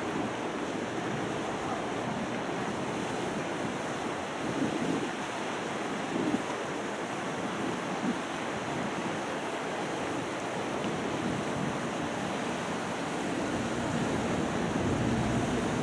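Harbour wind and water ambience, with wind buffeting the microphone. A low steady engine hum comes in near the end as the Santa Maria sightseeing ship draws near.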